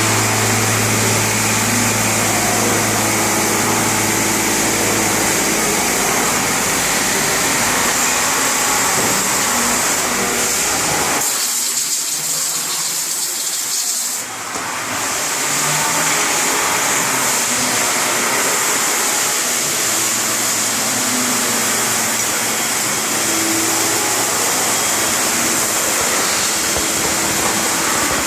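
CNC machine running steadily, a loud hiss with a low hum under it; the low hum drops out for a few seconds about halfway through before the running resumes.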